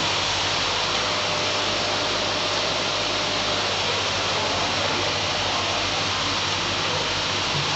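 Steady hiss of aquarium aeration and filtration with a low electrical hum underneath, unchanging throughout.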